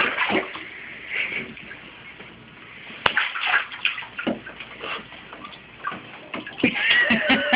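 Bathwater sloshing and splashing in a tub as a baby kicks and moves in the water, with one sharp knock about three seconds in. The splashing is quieter in the middle and livelier near the end.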